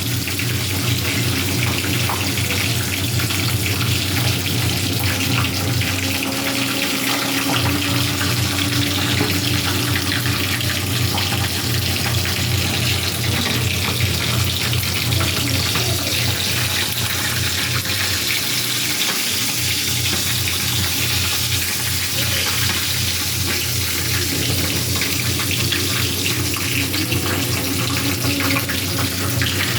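Food sizzling on a barbecue grill: a steady, unbroken hiss.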